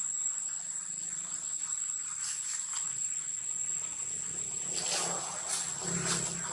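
Steady high-pitched insect drone in forest, with a few short, sharp noises about two seconds in and again around five to six seconds in.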